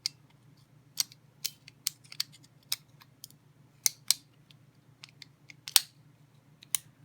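Irregular sharp metallic clicks and taps from the small parts of an OTF knife with an aluminium handle, as the knife is worked back together and its spring is fitted into the handle.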